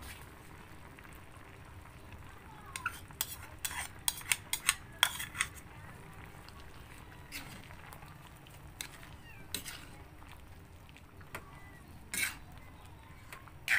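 Metal utensil clinking and scraping against a cooking pot while stirring. There is a quick run of sharp clinks a few seconds in, then a few scattered ones.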